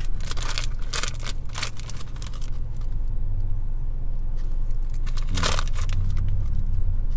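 Crinkling of a plastic snack bag as it is handled, with a few sharp rustles in the first two seconds and a few more later, over a steady low hum inside the car.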